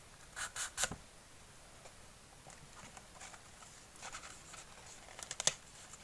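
A rolled paper scroll being handled and unrolled: short paper rustles and taps, three close together near the start and a louder cluster about five seconds in.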